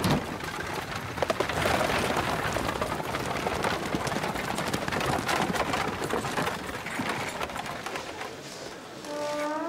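Horse-drawn carriage moving off: hooves and iron-rimmed wheels on gravel make a dense, steady clatter of many small clicks.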